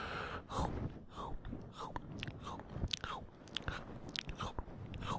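Close-up ASMR mouth sounds of ear nibbling: wet lip smacks, clicks and chewing noises at a few per second, recorded close to the microphone.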